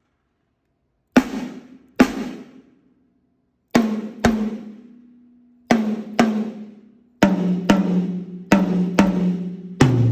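Drum kit sound check: single drums struck twice each and left to ring, going from drum to drum with the pitch stepping lower each time, from the snare down through the toms. Each drum rings with a clear tuned note.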